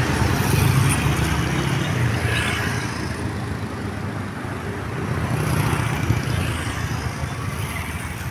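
Bus engine running close by, swelling louder near the start and again around five to six seconds, over traffic noise; no horn sounds.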